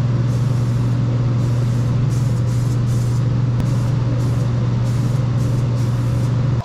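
An electric motor running with a loud, steady low hum and a rushing noise, under background music with a light regular beat.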